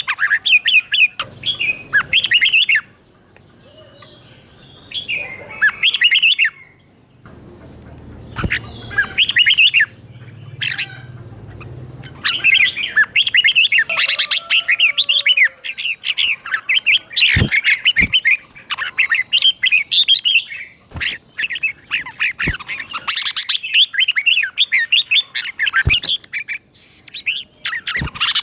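Red-whiskered bulbul singing runs of quick, bright chirping phrases, with a quieter stretch and a low rumble from about three to twelve seconds in. A few sharp clicks come in the second half.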